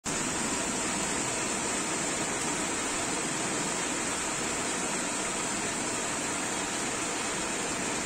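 A steady, even rushing noise with no speech or other events in it.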